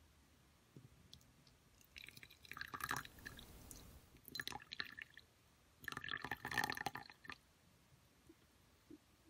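Tea poured from a teapot into a glass cup in three short spells, the liquid trickling into the glass.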